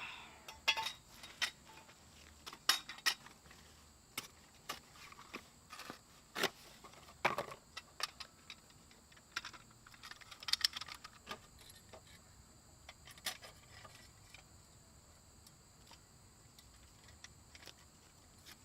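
Irregular metallic clinks, taps and small rattles, more frequent and louder in the first half, with a faint steady hum underneath.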